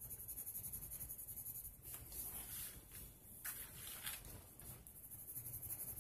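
Watercolour pencil scribbling on paper in quick, even back-and-forth strokes, faint. It breaks off about two seconds in for a few light taps, then the strokes resume near the end.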